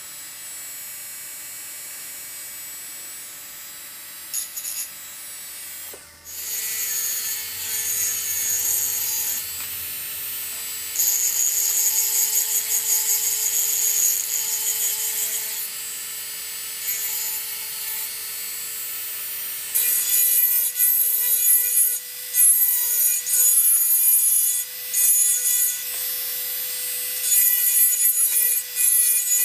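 Fine diamond-grit bur in a rotary engraving drill grinding wet glass to smooth the edges of the engraved design. A steady motor whine runs under a high, hissing scratch that comes and goes as the bur is pressed to the glass and lifted, and it grows louder after about six seconds.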